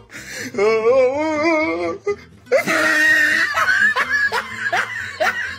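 A person laughing hard and loudly: first a long, wavering, high laugh, then after a brief pause a run of quick repeated bursts of laughter.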